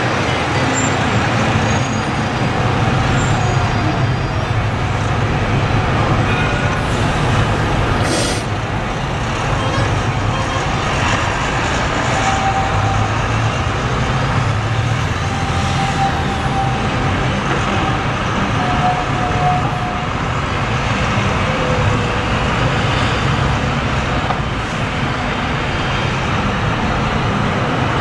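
Steady city street traffic heard from above: buses and trams running along the street below with a continuous low rumble. A single sharp click comes about eight seconds in.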